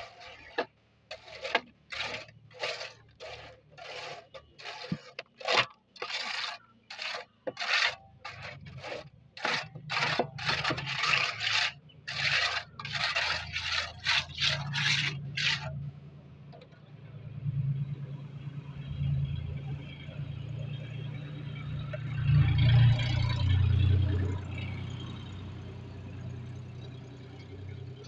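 A tool scraping through wet concrete in sharp, repeated strokes, about two a second, which stop about halfway through. After that comes a low engine drone that swells for a few seconds near the end.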